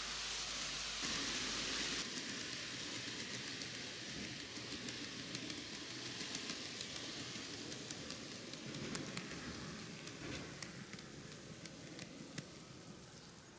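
TOMIX N-gauge Kintetsu 80000 series 'Hinotori' model train running on its track: a faint steady hiss of wheels and motor with scattered light clicks, fading toward the end.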